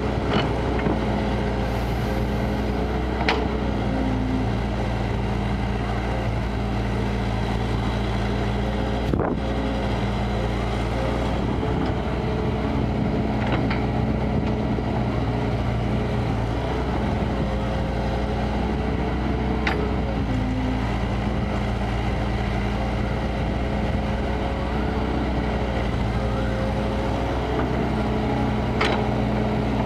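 Kobelco crawler excavator's diesel engine running steadily under working load as it digs, its note shifting slightly up and down, with a few brief sharp clanks spread through.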